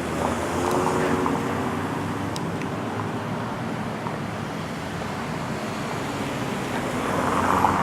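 Street traffic passing: a steady wash of tyre and engine noise, with a car's engine hum in the first couple of seconds and another vehicle swelling louder near the end.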